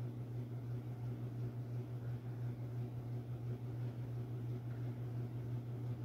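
Broan Europa ceiling fan running, its motor giving a steady low hum with a slight waver.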